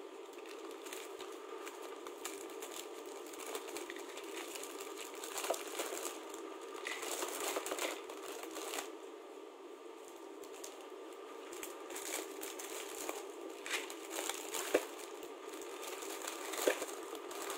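Plastic bag crinkling and rustling as it is handled, with irregular small crackles and ticks.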